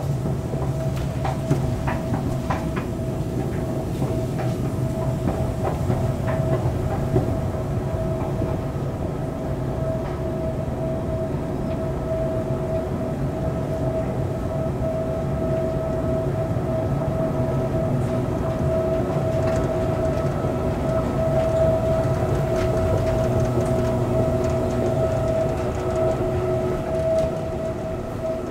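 2013 KONE escalator running under a rider: a steady mechanical hum with a constant whine over a low rumble, and a few clicks in the first few seconds.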